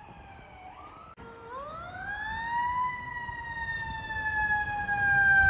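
Fire engine siren wailing. It drops in pitch at first, winds up again about a second and a half in, then slides slowly down. The siren and the engine's low rumble grow louder toward the end as the fire engine approaches.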